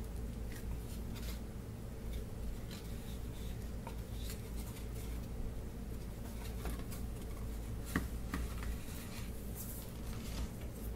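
Hands handling plywood parts and spring clamps on a workbench: scattered light clicks and rubbing, with one sharp click about eight seconds in. A steady low hum runs underneath.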